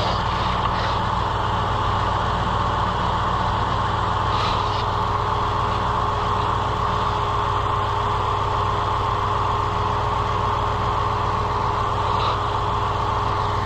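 A vehicle engine idling steadily and evenly, with a thin steady whine running over it.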